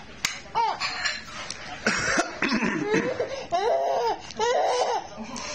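A baby laughing at coughing: short coughs about one to two seconds in, followed by the baby's high-pitched bursts of laughter near the middle and end.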